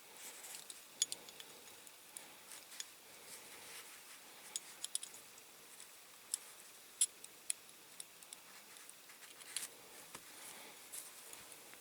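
Faint, irregular small clicks and taps of a diecast toy car's metal and plastic parts being handled and fitted together by hand, with a few sharper clicks scattered through.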